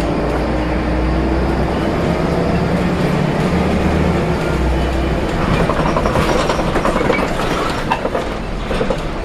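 Inside a Volvo B7RLE single-decker bus under way: a steady engine drone with a whine that rises slowly in pitch over the first couple of seconds. In the second half, quick clicking rattles come from the body and fittings.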